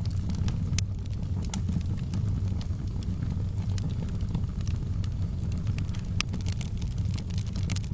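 Wood fire burning in a fireplace: a steady low rumble of flames with irregular sharp crackles and pops scattered throughout, a few of them louder.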